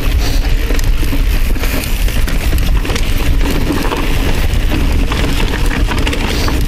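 Mountain bike riding fast down a rocky trail: a steady wind rumble on the helmet camera's microphone, with tyres crunching over rock and the bike clicking and rattling over the bumps.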